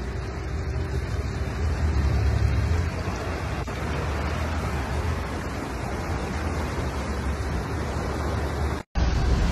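Large sportfishing yacht cruising close past: a steady low rumble of its engines mixed with the wash of its wake, swelling a couple of seconds in. The sound drops out briefly near the end.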